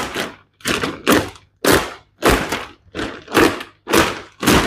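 Thin clear plastic mattress wrapping being pulled off and gathered up, crinkling and rustling in quick swishes, about two to three a second.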